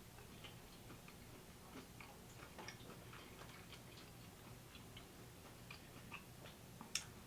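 Faint, irregular wet clicks of a person chewing a sauced chicken nugget close to the microphone, with a slightly sharper click near the end.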